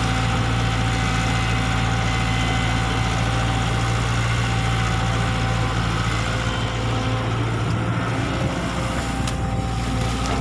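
Diesel engine of a Caterpillar E120B hydraulic excavator running at a steady speed.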